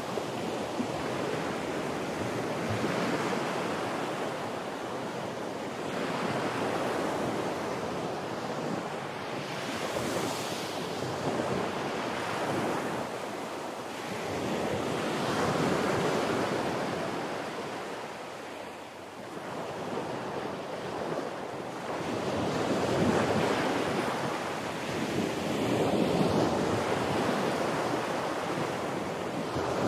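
Ocean surf washing in slow surges every few seconds, with wind buffeting the microphone.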